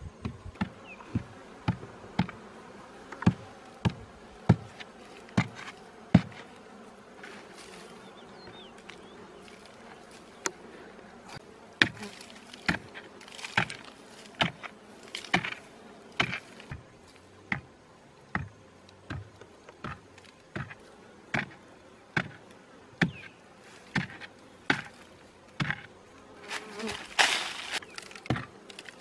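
A wooden digging stick striking and prying into hard, dry earth in a steady run of blows, one to two a second, with bees buzzing around the opened ground nest. A longer scraping rush of loose soil comes near the end.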